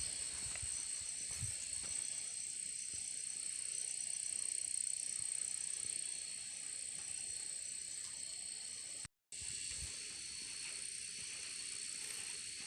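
Insects chirring in a steady high-pitched drone with a rapid pulsing, broken once by a brief gap of silence about nine seconds in.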